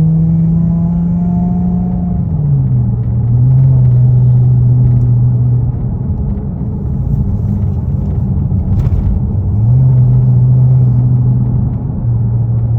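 A 3.6L Pentastar V6 in a 2011 Dodge Charger, exhausting through a Flowmaster Super 44 muffler with no rear mufflers, running with a strong steady drone. Its pitch drops a step about two seconds in, turns to a rougher rumble midway, and the drone comes back near the end.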